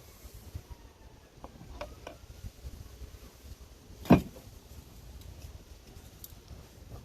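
A few faint clicks, then one sharp knock about four seconds in, over a low rumble of wind noise.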